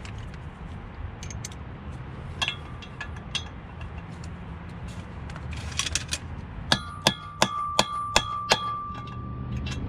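A hammer driving a fluted bolt extractor socket onto a rounded-off 12-point driveshaft bolt. After some light clinks of tool handling, there are six quick metal strikes, and a clear ringing tone hangs on after the last one.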